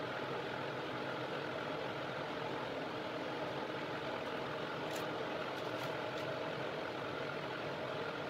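Steady mechanical hum of a running motor or fan, with a few faint ticks about two thirds of the way through.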